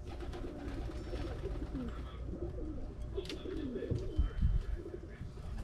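Several pigeons cooing over one another, low wavering coos overlapping throughout. A single sharp click sounds a little past halfway.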